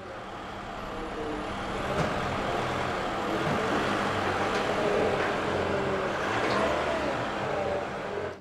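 Forklift engine running steadily, swelling over the first two seconds and easing slightly near the end.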